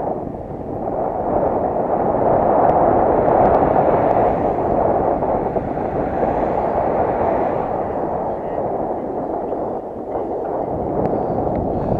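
Wind buffeting the microphone of an action camera on a moving bicycle: a loud, muffled rushing that swells a couple of seconds in and eases off a little towards the end.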